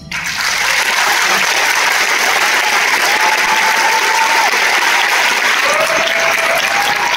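Audience applauding in a concert hall, starting suddenly just as the orchestral piece ends, and keeping up a steady, even clapping.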